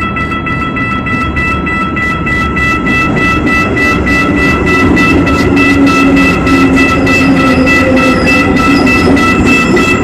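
Electric metro train pulling into the station: a steady high whine over regular wheel clatter of about three knocks a second, growing louder.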